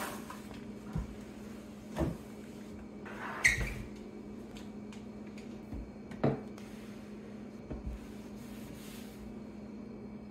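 Household objects being set down and handled on a kitchen countertop: about five short knocks and clunks, the loudest about three and a half seconds in with a brief ring, over a steady low hum.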